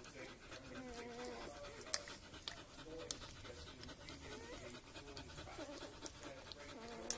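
Newborn Northern Inuit wolfdog puppies nursing, making soft wavering grunts and squeaks throughout, with a few sharp clicks here and there.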